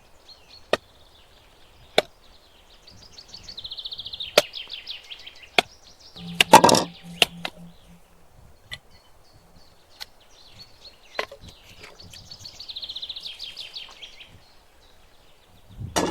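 Sharp knocks at an even pace, a little over one a second, with a louder clatter about six and a half seconds in. A bird trills twice in the background.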